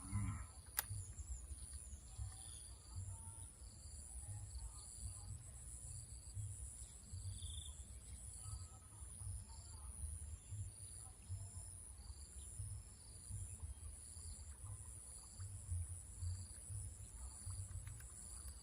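Insects calling: a steady high-pitched buzz with a short chirp repeated at an even pace, over a low steady rumble. A single sharp click just under a second in.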